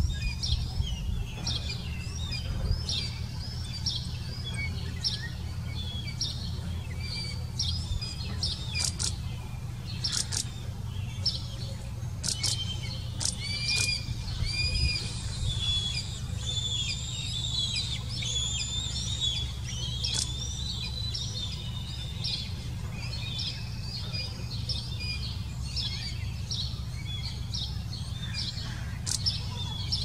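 Birds chirping and calling, a stream of short high chirps and trills that is busiest in the middle, over a low steady rumble.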